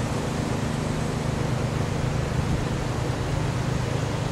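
Steady low hum of a running motor under an even hiss.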